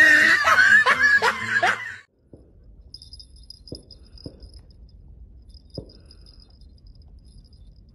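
A loud voice cuts off about two seconds in. Then small bite-alarm bells clipped to the tips of two fishing rods jingle faintly in patches, with a few soft knocks.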